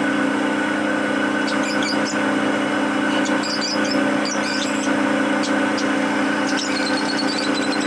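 Lovebirds chirping in short high squeaks, in several clusters, over a louder steady mechanical hum.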